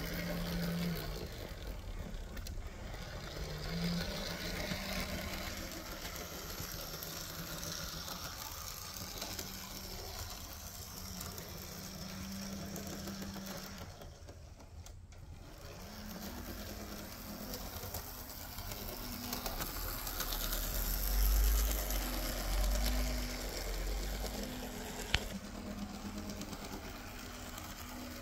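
Märklin Z-scale V36 diesel model locomotive running on track: the small motor and gear drive give a steady, slightly wavering hum and whir. A louder low rumble swells about two-thirds of the way through, and there is one sharp click near the end.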